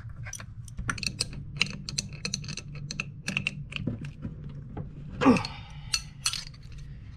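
Irregular small metallic clicks and clinks of a hand tool working the nuts and lugs of heavy battery cables, with one louder clunk about five seconds in.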